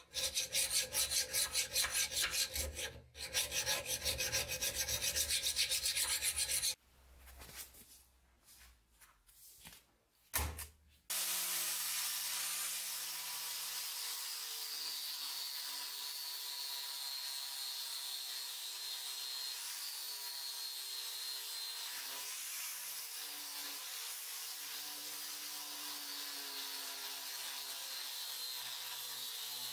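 A hand file rasps across a rusty steel cleaver blade in quick, repeated strokes, taking off the rust. After a few quieter seconds, an angle grinder with a sanding disc starts up and runs steadily against the blade for the rest of the time, grinding the rust away.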